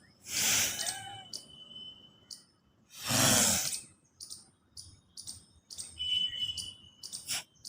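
Breathing demonstration of kapalbhati pranayama with the root lock (mula bandha): two long, forceful breaths through the nose, then short, sharp exhaled puffs that come quickly near the end, as the breath is pushed out in pieces.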